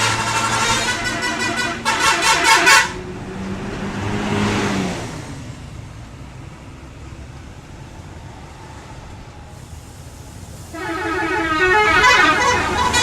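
Bus telolet horns sounding their multi-tone melody over a bus engine running, loudest about two to three seconds in; after a quieter stretch the horns start up again near the end.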